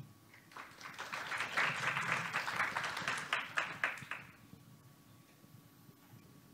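Audience applauding, a crowd of hands clapping that swells and then dies away about four seconds in.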